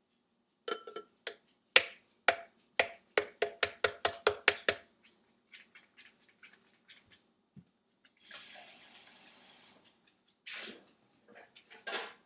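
A hard object knocking on a container: a quick run of sharp taps, about four a second, thins out to scattered taps, then a short hiss about eight seconds in and a few more knocks near the end.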